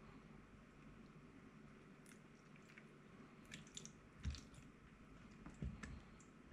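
Plastic ice-ball mould being twisted by hand: small crackles and creaks as the frozen ice loosens inside the moulds, starting about two seconds in, with a couple of soft knocks in the second half.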